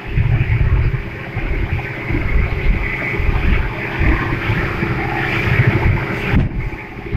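Speedboat running at speed through choppy sea: a steady engine drone under heavy wind buffeting on the microphone and rushing, splashing water.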